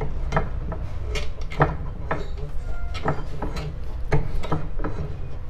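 A bench vise being closed lightly on a shock absorber's seal housing to align the new seal: a string of irregular metal clicks and knocks.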